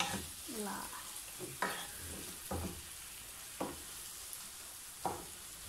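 Chicken frying in a Happy Call double-sided pan, sizzling steadily, while a wooden spatula stirs and knocks against the pan about five times.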